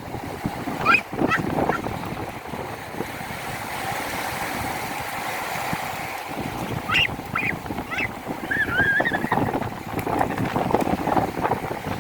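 Sea waves washing in over steady wind noise, with a few short high-pitched squeals from children playing in the water, about a second in and again several times near the end.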